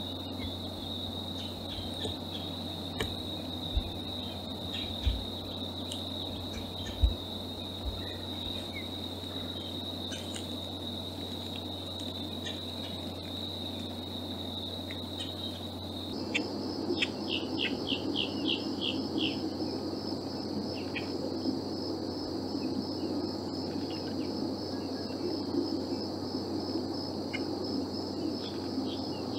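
Insects trilling in one steady high note. About halfway through it gives way to a higher, pulsing insect trill, with a quick run of bird chirps just after the change. A few sharp knocks sound in the first half.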